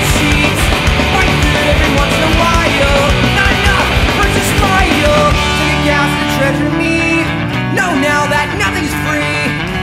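Live punk rock band playing, with electric guitar and drums. A little past halfway the drums drop back and the pitched guitar lines stand out more.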